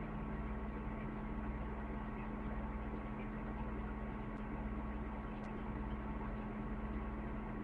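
Steady electrical hum with a constant low tone and faint hiss, with no voices: the recording's audio has cut out while the recorder keeps running.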